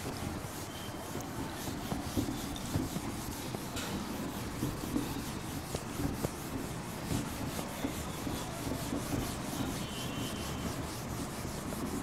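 Whiteboard duster rubbing across a whiteboard in repeated short strokes, wiping off marker writing.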